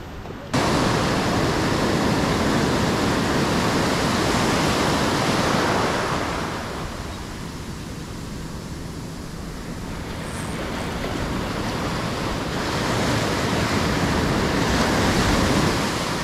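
Ocean surf washing up the beach: a loud rush of breaking foam that eases off about six seconds in, then builds again with the next wave near the end.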